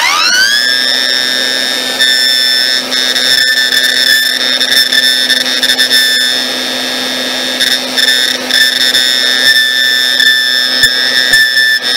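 Gtech AirRam Mk1 cordless vacuum's motor spinning up to a steady high whine over a low hum. It runs with a stripped brush-roll drive cog, so the brush roll is not being driven.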